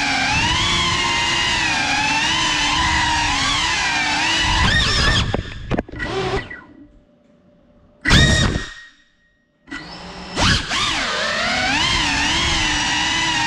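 Brushless motors of a GEPRC 5-inch FPV quadcopter whining, the pitch wavering up and down with the throttle. About five seconds in, the whine falls in pitch and dies away almost to silence as the quad goes upside down, with one short rising burst of spin-up near eight seconds. Around ten seconds the motors spool back up and the wavering whine returns.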